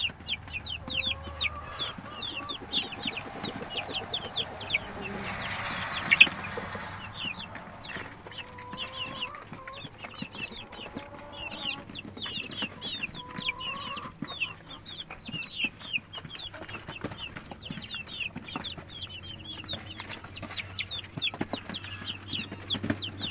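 A brood of Jersey Giant chicks peeping constantly, many short high cheeps that fall in pitch, with some lower calls among them. About five seconds in a rustling noise builds and ends in a sharp knock, the loudest sound here.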